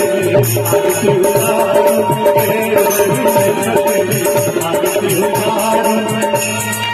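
Live devotional aarti song music, amplified, with held melodic notes over a steady percussion beat.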